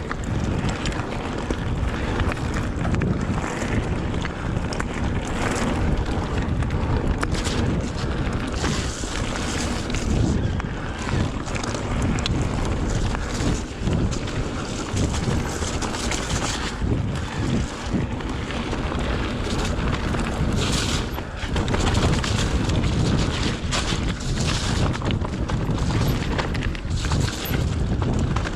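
Wind buffeting the microphone while riding a mountain bike down a rough trail, with tyres and bike rattling and knocking over the bumps.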